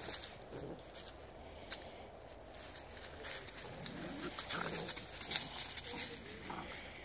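An Airedale puppy and a wirehaired griffon puppy play-wrestling on dry leaf litter: short grunts and growls come in a cluster about halfway through and again near the end, over the rustle and crunch of leaves under their paws.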